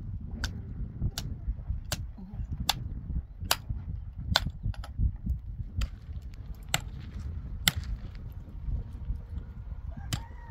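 Repeated sharp blows, about one every three-quarters of a second and a dozen in all, over a steady low rumble.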